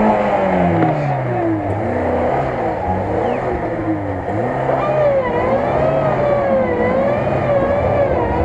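Lada Niva's engine revving up and down in repeated surges as the car churns slowly through deep mud, its wheels spinning for grip. The revs waver quickly in the second half.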